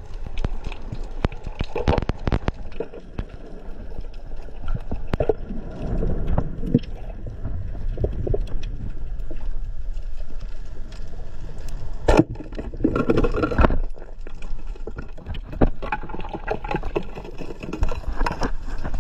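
Underwater noise picked up by a camera beneath the sea: a steady muffled wash full of sharp clicks and crackles, with louder rushing bursts about two-thirds of the way through.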